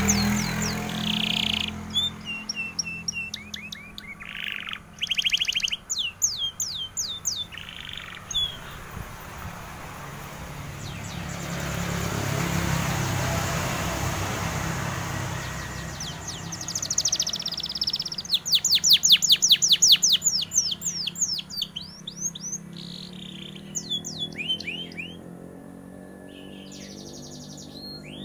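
Canary singing vigorously in phrases of fast repeated trills and whistled slides, broken by short pauses, with the loudest, longest trill run near the middle of the second half. A low rushing noise swells and fades partway through.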